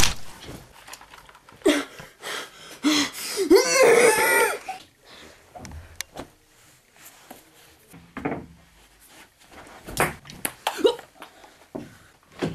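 People laughing in short bursts in a small room, with a few scattered knocks and brief vocal sounds later on.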